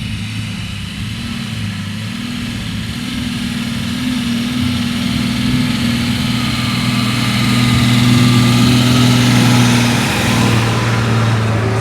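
Heavy vehicle's diesel engine running steadily, growing louder over the first eight seconds or so, then easing off slightly.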